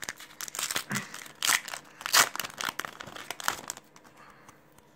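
Foil wrapper of a Yu-Gi-Oh booster pack being torn open and crinkled by hand: a dense run of crackles, loudest about two seconds in, dying away near four seconds.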